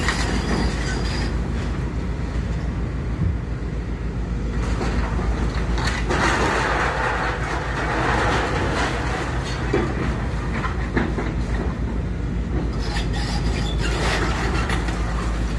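A heavy machine's engine running steadily during a house demolition, with the crunching and clattering of breaking walls and falling rubble, heaviest from about six to twelve seconds in.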